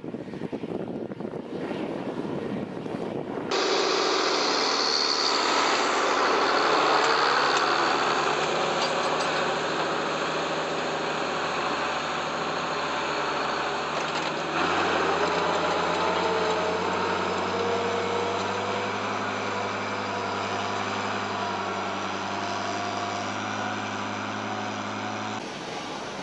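Diesel engines of heavy farm machinery working a field: first a more distant engine with a hazy, wind-like rumble, then about three and a half seconds in a louder, closer tractor engine running steadily, its note turning deeper about halfway through.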